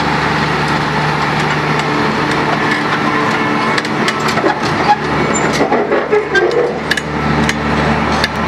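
Kleemann Mobirex EVO 110 tracked impact crusher running and creeping on its crawler tracks. It gives a steady, loud engine drone, with irregular metallic clanks and clicks from the tracks that grow busier in the second half.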